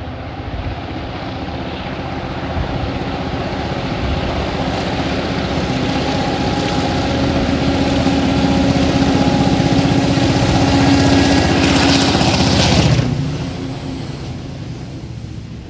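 TasRail diesel-electric freight locomotives approaching and passing, their engine drone growing steadily louder to a peak about thirteen seconds in, then falling away quickly.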